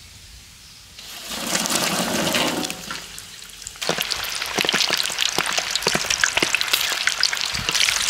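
Whole garlic bulbs deep-frying in a wok of hot oil: a dense crackling sizzle full of small pops, setting in about four seconds in. Before it, a shorter rushing burst about a second in.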